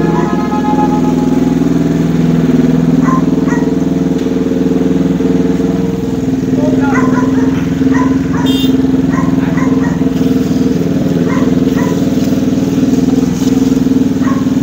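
Engine of a homemade Lamborghini replica idling steadily, with short high chirps now and then over it.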